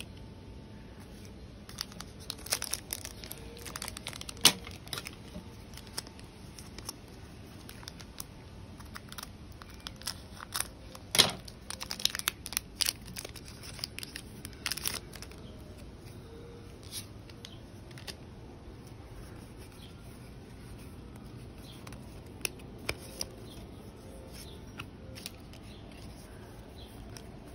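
Foil wrapper of a Pokémon booster pack crinkling and tearing open, with the cards then handled and slid against each other. Irregular crackles and sharp clicks, busiest in the first half, then fewer and fainter.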